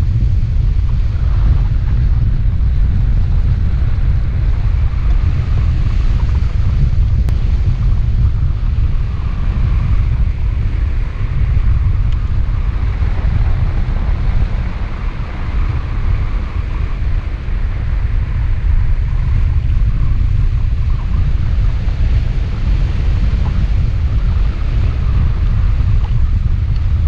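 Airflow buffeting a camera microphone on a hang glider in flight: a loud, steady, deep rumble of wind noise.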